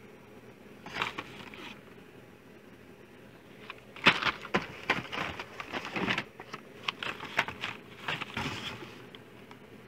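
Blister-card packs of die-cast toy cars being handled: plastic bubbles and card backs crinkling and clacking against each other. There is a short flurry about a second in, then a longer run of clicks and rustles from about four seconds in until near the end.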